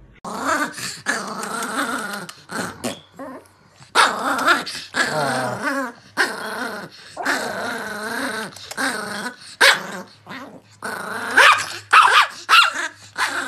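Dogs growling and barking at each other in wavering bouts of a second or two, one after another.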